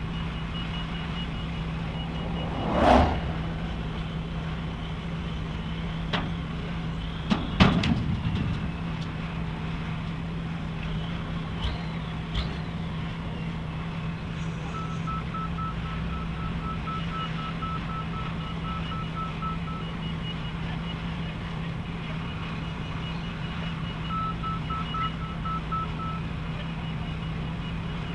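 Heavy construction machinery running with a steady low drone, while electronic warning beepers sound in repeated runs of short beeps at two different pitches. Loud knocks and metallic clanks stand out about three seconds in and again around seven to eight seconds in.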